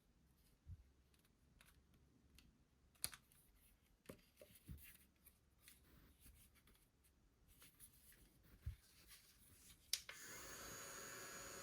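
Faint handling of a small plastic mini fan, scattered light clicks and rustles, then a click near the end after which the fan runs with a steady airy hiss and a faint high whine.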